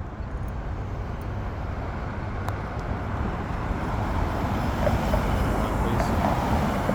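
Road traffic at an intersection: a steady low rumble of passing vehicles that slowly grows louder.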